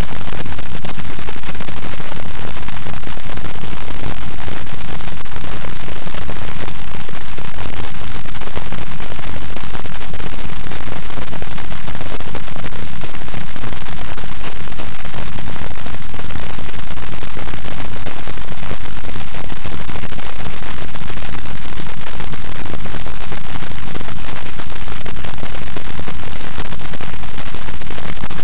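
Loud, even electronic static hiss, with no voice audible through it.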